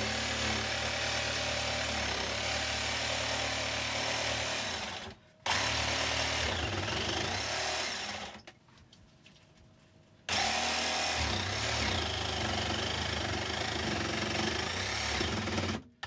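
Ryobi cordless jigsaw with an aftermarket Diablo blade cutting through the galley countertop of a boat. It runs steadily, stops briefly about five seconds in, pauses for about two seconds near the middle, then cuts again until just before the end.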